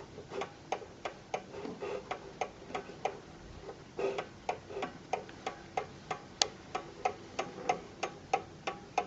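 Ingraham mantel clock movement ticking steadily with its deadbeat escapement, about three ticks a second as the pendulum swings.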